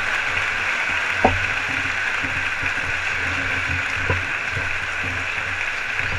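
Steady noise of an indoor fight crowd, with a sharp thud about a second in and a softer one around four seconds in.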